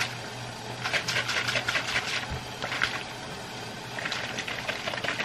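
Chicken searing in a frying pan: fine sizzling crackles that come in clusters, over a steady low hum.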